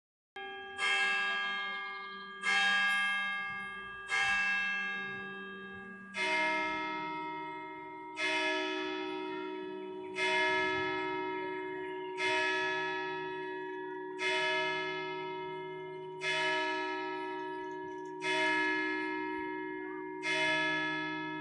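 Church bells of a Protestant church ringing the 8 pm evening peal, a strike about every two seconds, each ringing on and fading. About six seconds in a lower bell's tone joins the ringing.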